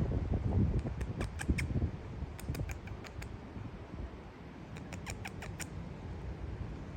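Three quick runs of short, high chirps from a small animal, each run four to six chirps in about half a second. Low wind rumble on the microphone in the first two seconds.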